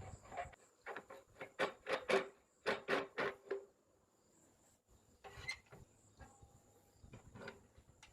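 A quick run of short wooden knocks and scrapes, about a dozen in the first few seconds, then a few scattered ones.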